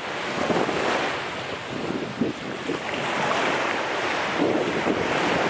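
Ocean waves washing onto the beach, with strong wind buffeting the microphone in gusts.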